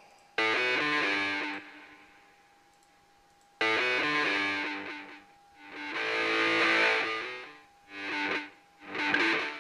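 Distorted electric guitar chords played back from a recorded track. Two chords are struck about three seconds apart and left ringing. After that the sound swells up and fades down three times, as the track's volume fader is moved.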